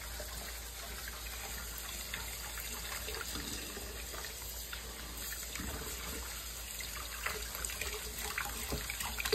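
Kitchen faucet running into a stainless steel sink, the stream splashing off gloved hands as fruit is rinsed under it. A few short clicks and knocks come in the last few seconds.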